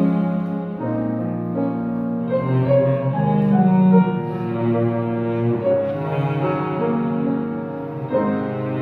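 Bowed strings led by cello, with double bass and piano, playing a slow, sustained melody in an instrumental passage of a choral anthem.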